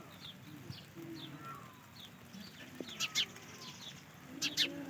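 Birds chirping repeatedly in short high notes, with two pairs of loud sharp chirps, about three seconds in and again near the end.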